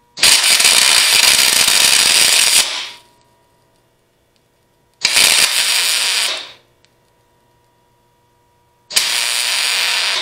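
Wire-feed (MIG) welder arc crackling and hissing in three runs of welding: a long one of about two and a half seconds, then two shorter ones of a second or so, the last cut off at the end. The weld is fixing a nut onto a broken bolt stub so that the bolt can be backed out.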